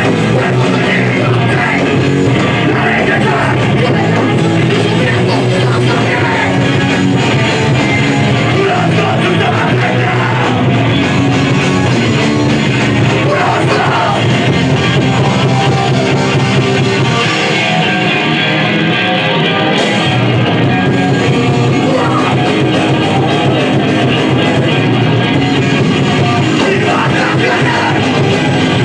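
Live punk rock band playing loud and without a break, with shouted vocals over the band.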